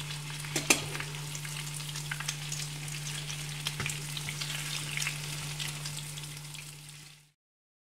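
Egg-dipped bread slices sizzling as they fry in hot oil in a pan, with sharp clicks of metal tongs against the pan and bread as the slices are turned over. A steady low hum runs underneath, and everything cuts off abruptly shortly before the end.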